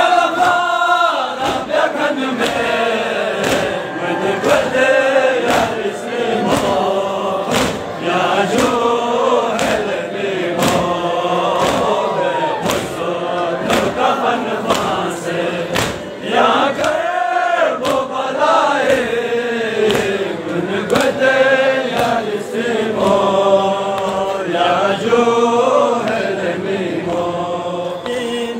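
Crowd of men chanting a Balti noha, a Shia mourning lament, in unison. A steady beat of sharp strikes runs under the chant, fitting hands slapping chests in matam.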